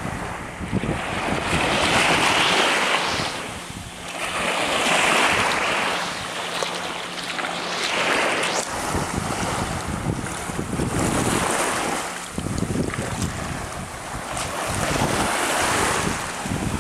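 Small waves lapping on the sandy shore of a shallow lagoon, washing in and out about every three seconds, with wind buffeting the microphone.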